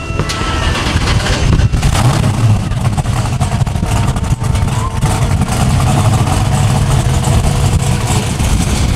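American V8 muscle car engine running with a loud, steady, deep rumble.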